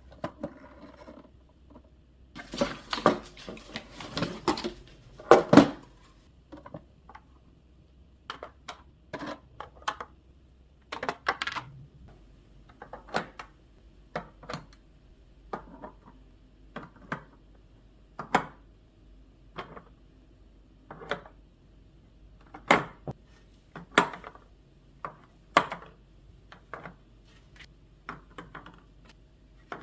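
Eggs being set one at a time into a clear plastic egg holder, each landing with a light click of shell on hard plastic about every second or so. A few seconds in there is a short spell of louder clattering and handling of the plastic.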